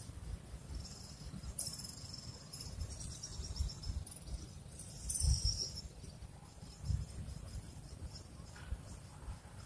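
Insects calling in high-pitched buzzing bursts that swell and fade, over an uneven low rumble.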